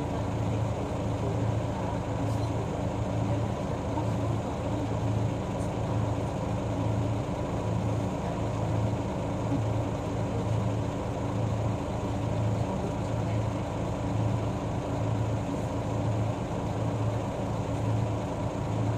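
City route bus's diesel engine running steadily, heard from on board, with a low hum that pulses gently and holds the same pitch throughout.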